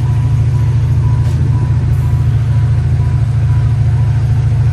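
1996 Chevrolet Impala's LT1 5.7 L V8 running steadily after an Opti-Spark distributor replacement and tune-up, which the owner thinks sounds like the timing is off. A faint high beep repeats over it.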